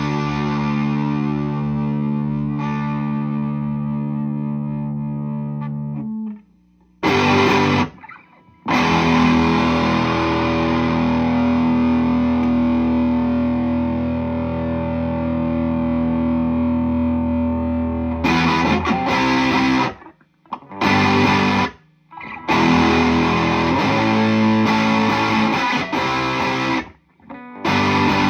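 Electric guitar played through a Flum Dilly distortion and boost pedal, its chords distorted. Long held chords ring out, then near the end short chords are cut off sharply with brief silences between them.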